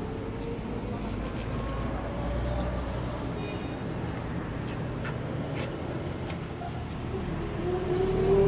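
Road traffic: a steady low rumble of motor vehicles, with a rising engine whine that grows louder near the end.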